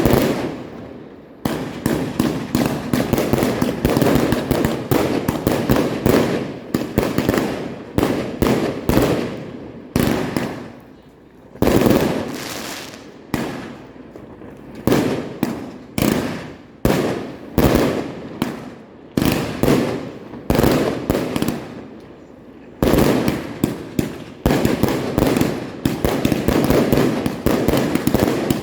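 Fireworks going off in a continuous barrage: loud, sharp bangs every second or two, with dense crackling in between, and no let-up.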